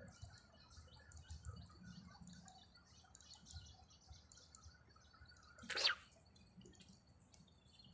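Faint bird chirping over a steady high tone, with one short, louder sound sweeping down in pitch about six seconds in.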